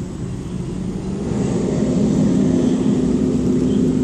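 Cat purring right at the microphone, a steady low rumble that grows louder about a second in.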